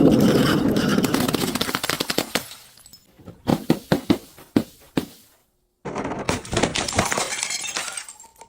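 Glass bottle shattering and being crushed: a sudden dense crackle of breaking glass, then several separate sharp cracks. After a brief silence comes another run of crunching glass.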